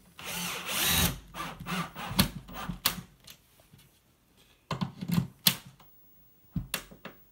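Work handling noise: a rushing burst about a second long at the start, then scattered sharp clicks and knocks, bunched about five seconds in and again near the end.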